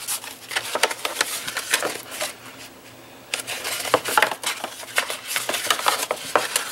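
Stiff cardstock being handled and folded into a box shape: a run of crisp paper crackles and clicks, with a short pause a little before midway.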